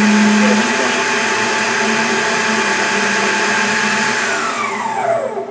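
Emco PC Mill 50's spindle motor running unloaded at high speed with a steady whine, as the CNC program runs with no workpiece in the vise. A lower hum drops out under a second in, and near the end the whine falls in pitch as the spindle spins down.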